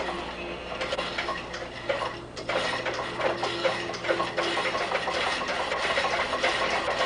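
Homemade low-temperature heat engine's two gas-driven prime movers starting to run as the throttle is opened, turning a belted alternator: a rapid mechanical ticking clatter that grows denser and louder from about two and a half seconds in as they pick up speed.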